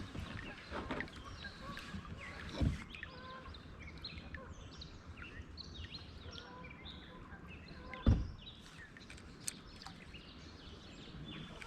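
Songbirds chirping and singing along the river, many short calls scattered throughout over a faint background hush. Two dull knocks sound about three seconds in and again about eight seconds in.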